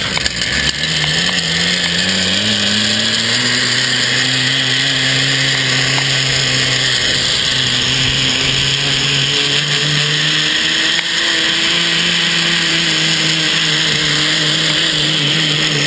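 Zip line trolley pulleys running along the steel cable: a loud whine that rises in pitch over the first few seconds as the rider gathers speed, then holds steady, over a rushing hiss.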